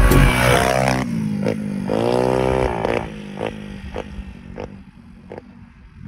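Small two-stroke moped engine, fitted with a 90 cc cylinder kit, blipped once about two seconds in, its pitch rising, holding and dropping back, with a few sharp clicks and clatter around it.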